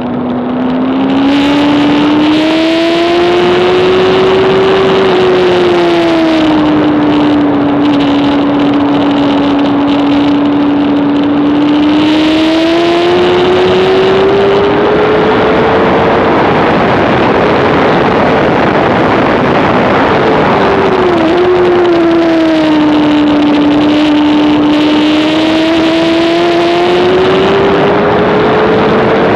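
A Honda CBR600RR's inline-four engine is held at high revs under racing load. Its pitch climbs and falls slowly several times, with a quick dip about two-thirds of the way through. A heavy rush of wind noise swells loudest in the middle.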